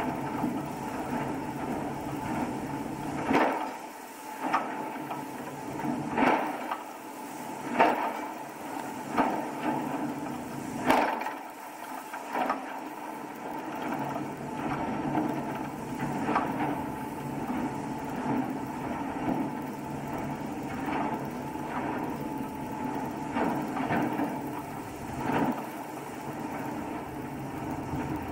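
Pilot launch under way at sea: a steady engine drone, with irregular sharp knocks as the hull slaps into the waves, every second or so and hardest in the first half.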